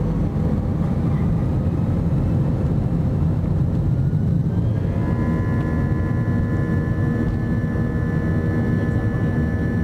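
Airbus A320-200 jet engines heard from inside the cabin: a steady low rumble, with a whine that rises from about three and a half seconds in and settles into a steady high whine at about five seconds, the engines spooling up to takeoff thrust as the takeoff roll begins.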